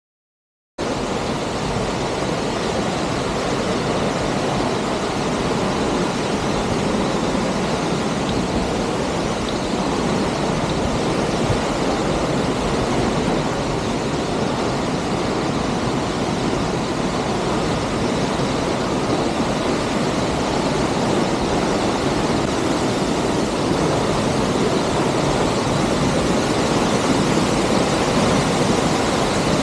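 Steady rushing of a waterfall, cutting in abruptly about a second in and holding at an even level.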